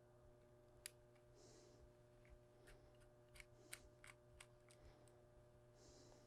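Faint, light metallic clicks of small parts being handled while a Torx driver takes the screws and pocket clip off a titanium knife scale: one click about a second in, then a run of about eight quick clicks, over a low steady room hum.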